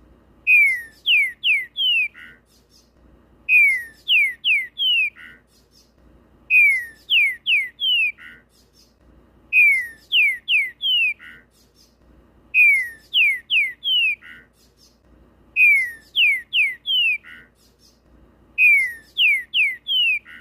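Trinca-ferro (green-winged saltator) singing in full form: the same loud phrase of four falling whistles, the last one lower and wavering, repeated about every three seconds, seven times.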